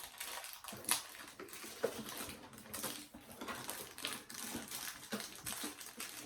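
Handling of a small toy figure and its cardboard advent calendar: scattered light clicks, taps and crinkling rustles, with a couple of sharper ticks.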